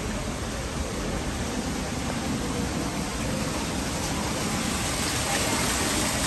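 Small artificial rock waterfall splashing into a pool: a steady rush of falling water that grows a little louder near the end.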